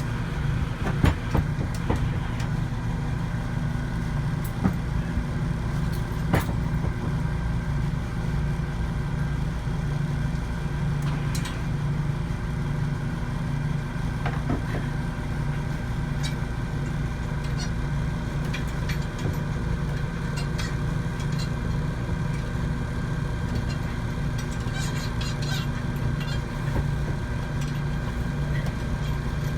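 Service truck's engine idling steadily, with a few short sharp clicks and knocks in the first several seconds.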